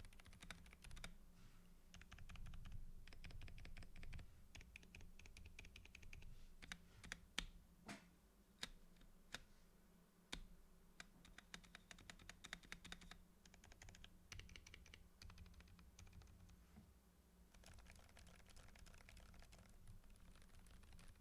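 Quiet typing on a mechanical keyboard fitted with enthusiast switches: runs of fast keystrokes, with short pauses between bursts.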